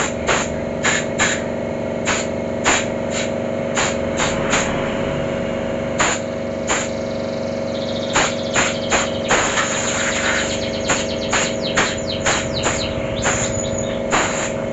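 Short, repeated blasts from a compressed-air blow gun, about two a second and irregular, with one longer blast about two-thirds of the way through. The air is blowing clutch-lining dust out of a scooter's CVT clutch assembly. Under the blasts runs a steady mechanical hum.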